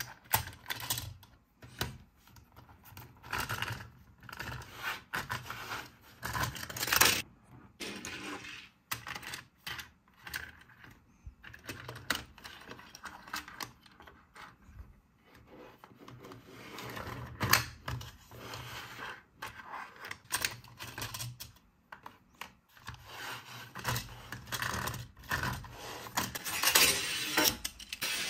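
Hard plastic clicking, rattling and scraping from a Hot Wheels die-cast car and the plastic Hot Wheels City Cupcake Twist track set being handled. Irregular clicks come throughout, with louder clattering bursts about 7 and 17 seconds in and near the end.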